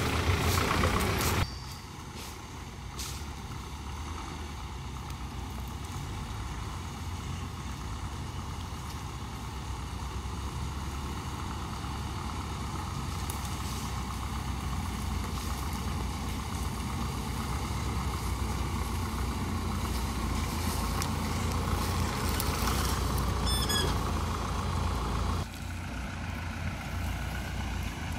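Engines of Mahindra off-road jeeps, an MM540 and a Thar, running steadily as they crawl up a rough dirt trail, the low rumble slowly growing louder as they approach. A louder passage in the first second and a half ends abruptly, and the level drops suddenly near the end.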